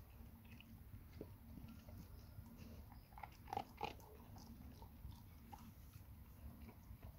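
Labrador retriever chewing and biting food off the ground: faint scattered clicks of jaws and teeth, with a louder cluster of bites about three and a half seconds in.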